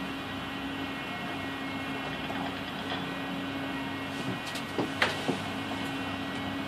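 Steady hum and rush inside a moving cable-car gondola cabin, with a low steady tone running under it. A few light clicks and knocks come about four and a half to five seconds in.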